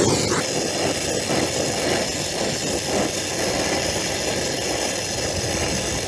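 Brazing torch flame burning with a steady rushing hiss as it heats a copper refrigerant line joint during brazing.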